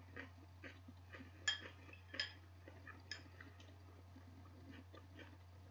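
Fork or other cutlery clinking against a dish while eating salad: a few sharp, ringing clinks in the first half, with softer clicks between. A steady low hum lies underneath.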